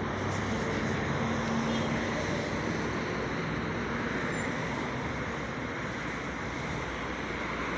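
Steady road traffic noise from cars passing on a city street.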